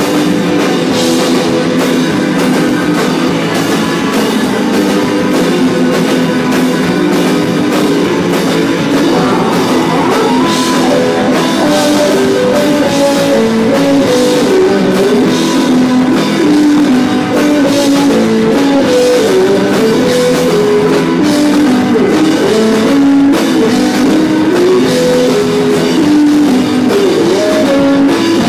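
Garage rock band playing live: loud electric guitar over a drum kit, with a melodic line coming in about nine seconds in and moving up and down.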